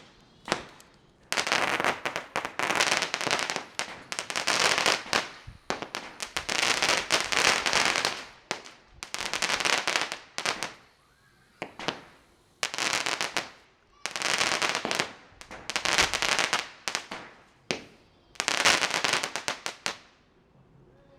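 Fireworks going off in a run of crackling bursts, each about a second long with short gaps between, stopping shortly before the end.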